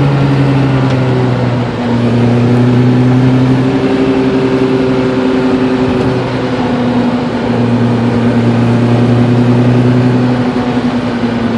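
Steady, engine-like droning inside the cabin of a moving Lotus Elise. It holds a nearly constant pitch and breaks off and resumes every few seconds.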